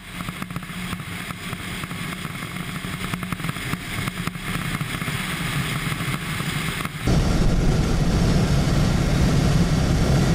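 Road and wind noise of a moving car. It turns abruptly louder and deeper about seven seconds in.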